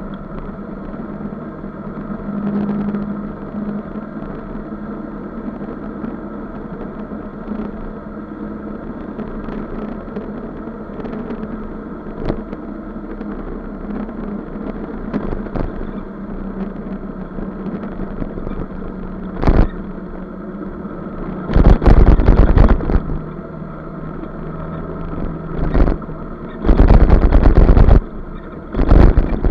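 Motor scooter engine running steadily at cruising speed, heard on board with a constant drone and road noise. In the last third, several sudden, very loud rushes of noise come and go.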